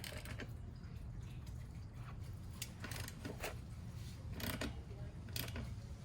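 A wrench working on a BMX bike's axle nuts: several short, irregular metallic clicks and scrapes as the wheel is tightened, over a low steady hum.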